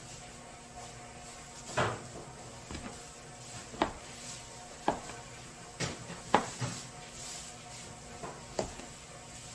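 A handful of sharp knocks and clacks at irregular intervals, like objects being handled and set down, over a faint steady hum.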